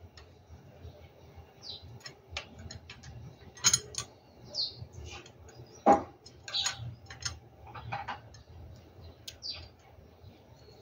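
Scattered clicks and light knocks of small metal fittings and hand tools being handled while the injection pump's fuel return line is fitted, with one louder knock about six seconds in. Three short high chirps come over the top.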